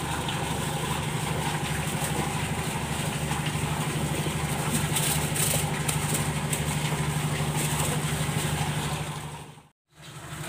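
A diesel engine running steadily at idle, a low even hum with a throb beneath it. It cuts out for a moment near the end, then the same hum resumes.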